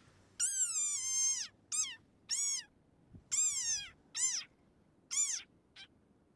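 Desert rain frog giving seven high, squeaky calls in quick succession, each bending up and then falling in pitch; the first is the longest, about a second, and the last is short and faint.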